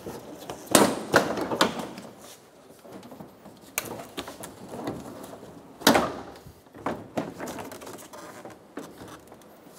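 Plastic front bumper cover of a 2012 Subaru Impreza being pulled off: its retaining clips snap loose and the cover clunks and rattles. There are several sharp snaps at uneven intervals, the loudest about a second in and about six seconds in.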